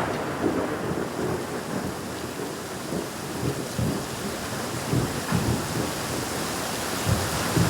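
Steady rain with thunder: a rumble fading away over the first second, then low, irregular rumbling under the even hiss of the rain.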